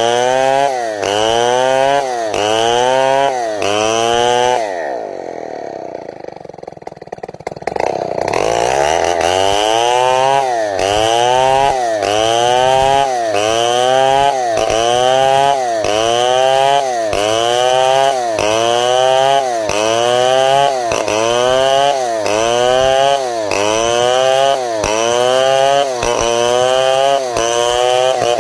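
Two-stroke chainsaw ripping timber lengthwise into boards, its engine surging up and easing back about once a second under load. About five seconds in it drops to idle, then revs back up to cutting speed a few seconds later.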